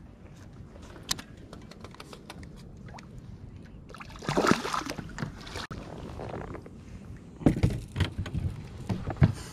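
Knocks, bumps and rustling of handling aboard a small plastic fishing boat, with louder scuffling stretches about four seconds in and again near seven and a half seconds.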